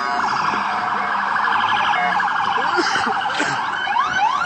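Police car siren on a fast yelp, warbling rapidly, changing near the end to short repeated rising sweeps.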